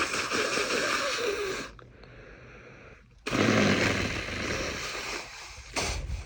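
A person with a cold blowing their nose hard, twice, each blow lasting about two seconds.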